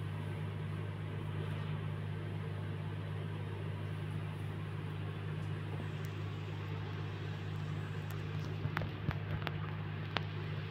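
A steady low mechanical hum, with a few light, sharp clicks near the end.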